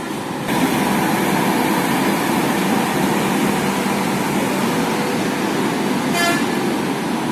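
Indian Railways WAP-7 electric locomotive passing close by, its wheels and running gear making a steady loud rumbling noise, with one short horn toot about six seconds in.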